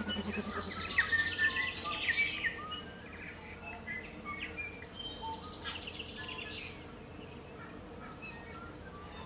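Tui morning chorus: tui singing a mix of chirps, whistles and fast trills. It is busiest in the first couple of seconds, with another trill around the middle, and thins out towards the end over a faint steady hum.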